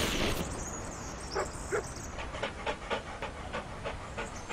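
A dog panting sound effect for a cartoon dog: quick, even pants, about five a second. Two short, sharper sounds come before them, about a second and a half in.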